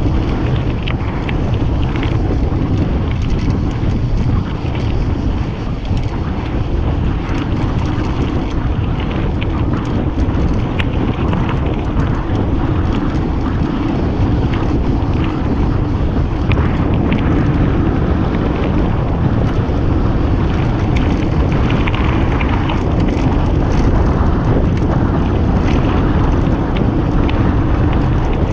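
Wind buffeting the camera microphone and mountain bike tyres rolling over a gravel track at descending speed, a steady rushing rumble. Small clicks and rattles are scattered throughout.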